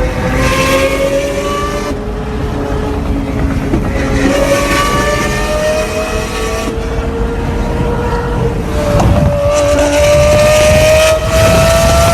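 Lamborghini Murcielago V12 accelerating hard, its pitch climbing steadily in long pulls with brief breaks at the gear changes.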